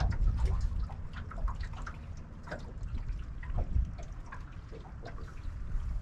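Small waves lapping against a boat's hull, an irregular patter of little splashes and drips over a low steady rumble.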